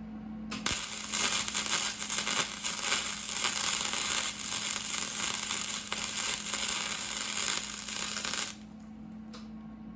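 Arc welding on a steel scooter frame: the arc crackles and spatters steadily for about eight seconds, starting half a second in and cutting off suddenly near the end.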